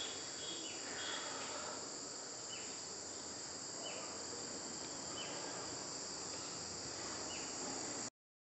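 Crickets chirring steadily in a dense high-pitched chorus, with a short falling chirp repeating about once a second; the sound cuts off suddenly near the end.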